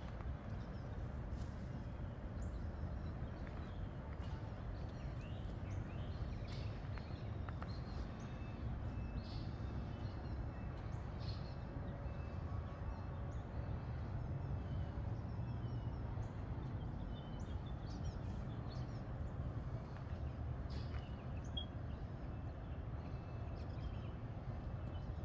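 Outdoor ambience: a steady low rumble with scattered faint clicks and a few brief high chirps.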